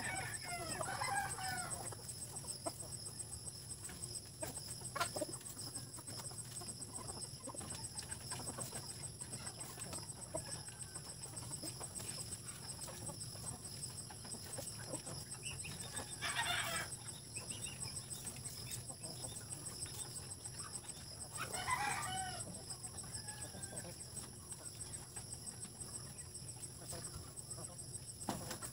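Native chickens clucking and calling as they forage, with three louder calls, near the start, about midway and about two-thirds through, a rooster crowing among them.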